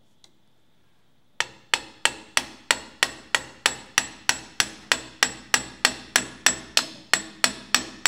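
A hammer tapping steadily on a metal shaft of an IBM Selectric III typewriter, about three sharp blows a second with a brief ring after each, starting about a second and a half in. The shaft is pressed together and is being knocked apart.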